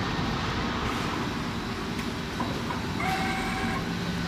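Steady din of factory-floor machinery, with a short steady tone lasting under a second about three seconds in.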